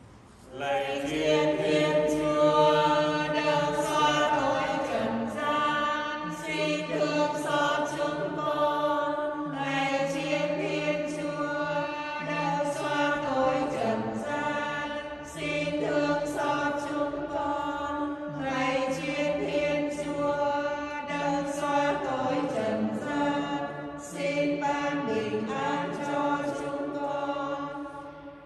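Voices singing a hymn in slow, held notes, with short breaks between phrases about 15 and 24 seconds in, fading out near the end.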